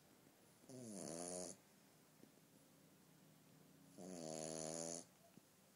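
French bulldog puppy snoring in its sleep: two snores about three seconds apart, each a buzzing, pitched rasp with a hiss on top. The first snore wavers in pitch.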